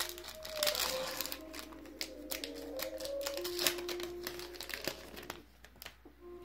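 Foil booster-pack wrapper crinkling and tearing as it is opened and the cards are slid out. The crackles are densest early and thin out near the end. Soft background music with held notes plays underneath.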